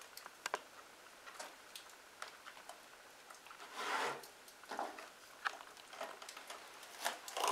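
Soft scattered clicks and crackles of a crusty multi-grain loaf being handled and cut with a knife on a wooden board, with a short louder rustle about four seconds in.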